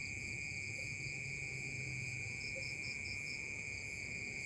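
Crickets trilling steadily in a night chorus, with a brief run of quick pulsed chirps about two and a half seconds in.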